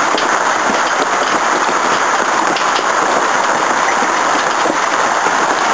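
Heavy hail falling and striking a timber deck. It makes a dense, steady clatter of countless small impacts that keeps an even loudness throughout.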